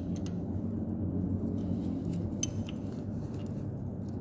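A few light metallic clinks of an open-end spanner on a rocker arm adjuster lock nut of a Mitsubishi 4M41 diesel's valve gear, a pair near the start and another pair about halfway through, over a steady low hum.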